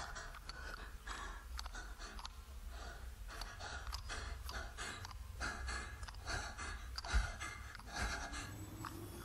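A person's quick, shallow breaths, a few each second, over a low rumble, with a single low thump about seven seconds in.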